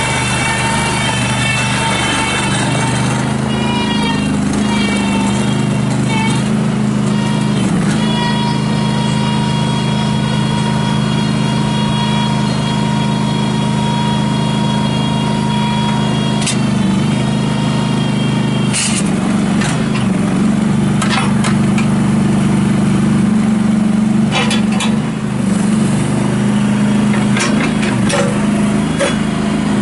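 Kohler 20-horsepower V-twin gas engine of a Terramite T5C compact backhoe loader running steadily. A high steady whine rides over the engine during the first half, and scattered knocks and clanks come through in the second half.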